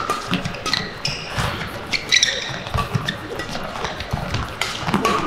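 Badminton rally: rackets striking the shuttlecock back and forth, with sports shoes squeaking sharply on the court mat several times and quick footsteps.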